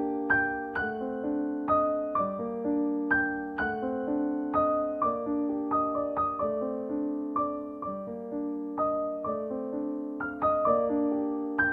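Background music: a solo piano melody of single notes struck one after another, each fading away after it is played.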